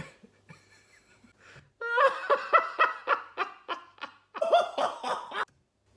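A man laughing: after a quiet second or two, a run of short laughing pulses, a brief break, then a second, shorter run that stops near the end.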